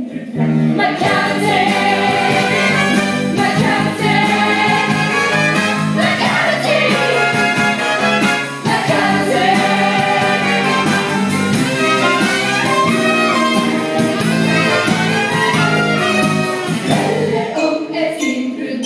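Live stage-musical band music with a steady, driving beat, played for the cast's dance number; it falls away briefly near the end.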